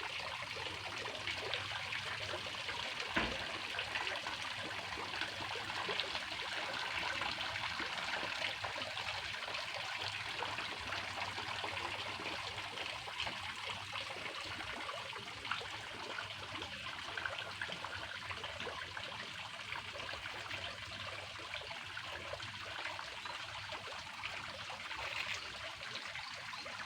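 Water trickling and flowing steadily, with a brief knock about three seconds in.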